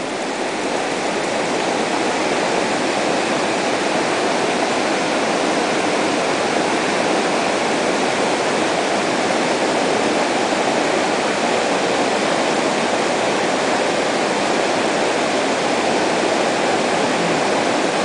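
Steady rush of a waterfall pouring into a rock pool, building a little over the first couple of seconds and then holding even.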